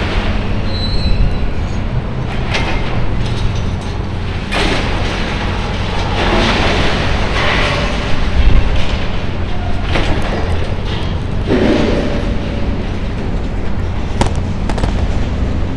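John Deere demolition excavator's diesel engine running with a steady low drone, with several separate crunching, clattering surges as it tears at the building's wrecked steel frame and debris falls.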